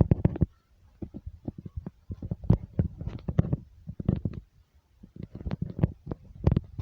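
Rapid, irregular rattling and knocking of loose objects over a low rumble, typical of a building being shaken by an earthquake.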